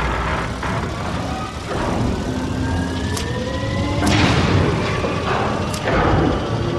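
Dramatic sound effects: a steady deep rumble with several heavy booms and slow rising whines.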